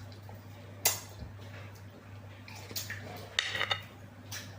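Eating noises: a handful of short, sharp clicks and wet smacks, the loudest about a second in and a quick cluster about three and a half seconds in, over a steady low hum.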